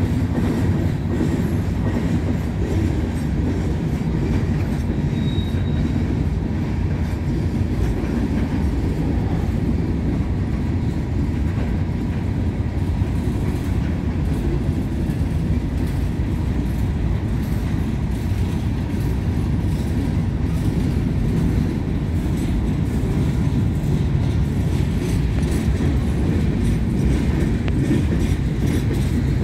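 Freight cars of a passing train, covered hoppers and open-top hoppers, rolling by: a steady, continuous rumble of steel wheels on the rails.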